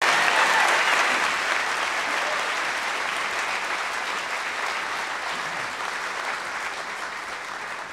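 Theatre audience applauding. The clapping starts suddenly at its loudest and slowly dies away.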